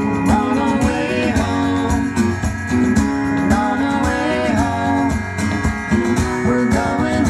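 Music with a plucked guitar carrying a melody over chords.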